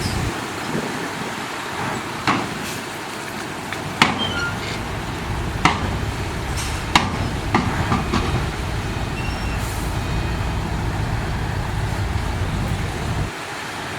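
Ten-wheel dump truck's engine running steadily, with several sharp metallic clanks and knocks through the middle. The low rumble drops away shortly before the end.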